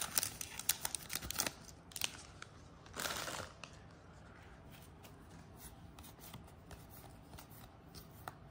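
A trading-card pack wrapper rustling and crinkling as it is opened, with a longer tearing sound about three seconds in. After that, only faint handling of the cards.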